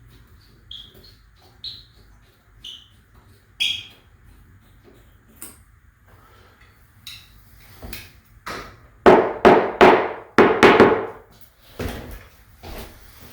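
Light clicks and short squeaks, then a quick run of loud knocks and clunks from about nine to eleven seconds in, and a few softer knocks after.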